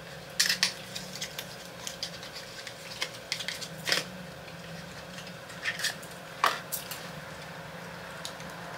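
Small plastic lip gloss tubes and their packaging handled by hand: scattered light clicks and taps, a few sharper ones, over a faint steady hum.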